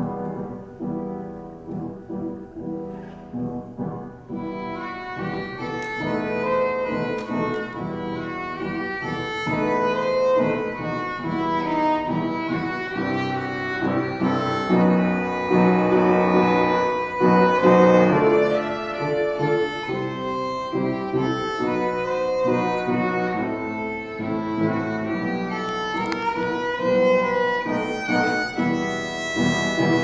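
Violin playing a bowed melody, sustained notes with a wavering pitch; it starts softly and grows fuller a few seconds in.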